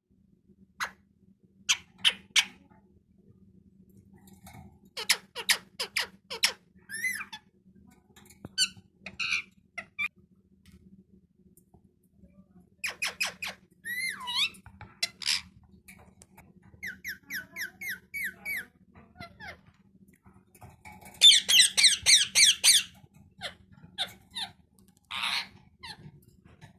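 Pet parrot giving a string of short, sharp squeaks and squawks, with a quick run of chirps in the middle and a loud burst of rapid screeching about three-quarters of the way through.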